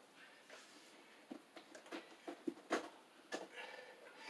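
Sheathed electrical cable being pulled through drilled holes in wooden floor joists: a run of faint, short, uneven scrapes and rustles, the strongest near the middle.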